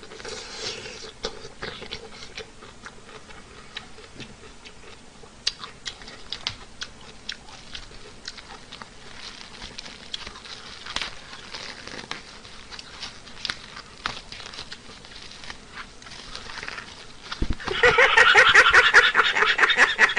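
Close-up eating noises: a scatter of small clicks and smacks from chewing and handling food. Near the end a man laughs loudly and at a high pitch.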